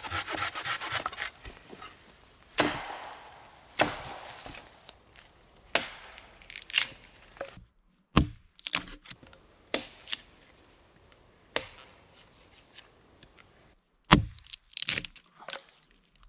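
Hand saw rasping through a dead spruce branch in quick, even strokes that stop about a second in, followed by a string of separate sharp chops and cracks as a hatchet strikes and splits a thin dead stick laid on a log.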